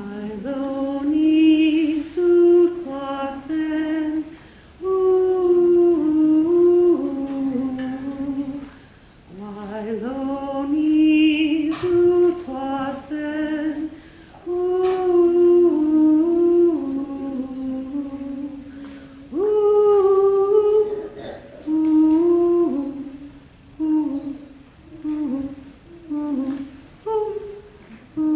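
A woman's voice humming a slow lullaby melody without words, in phrases a few seconds long with short pauses between them.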